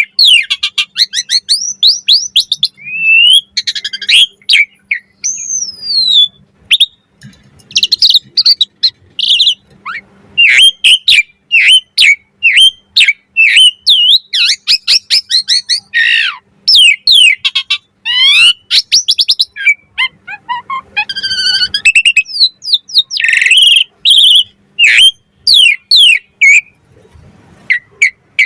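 Pied starling (jalak suren) singing its 'mompa' display song: a long, varied run of rapid whistles, chirps, clicks and sliding notes, broken by a couple of short pauses.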